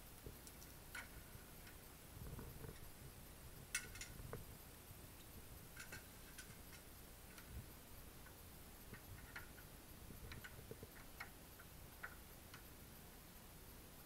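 Faint, scattered metallic clicks and taps as a screwdriver and door-lock hardware are handled, with one sharper click a little under four seconds in.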